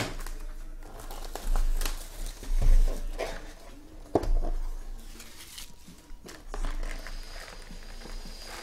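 Cardboard trading-card hobby box being handled and opened: scattered knocks and rustling as the lid is lifted off and a hand reaches in among the foil packs.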